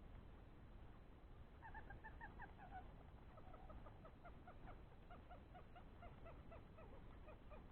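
A faint bird calling: a quick run of short notes, then a steady series of short notes, about three a second.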